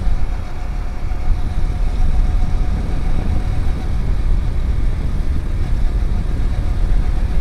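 Motorcycle engine running steadily while riding at cruising speed, with heavy wind rumble on the phone's microphone.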